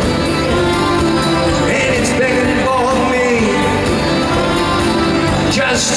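Live band music in an arena with a voice singing a wavering melody over a full band, heard through an audience recording.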